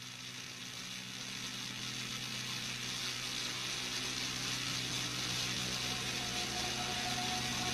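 Background music fading in: a steady droning hum and hiss that swells slowly and evenly in loudness, with a few higher held tones coming in near the end.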